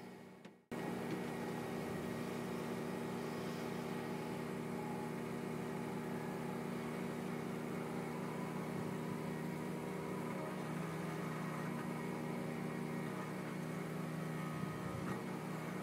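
Engines running steadily: a New Holland skid-steer loader and a portable generator powering a compost screener, heard together. The sound cuts in about half a second in, after a short gap.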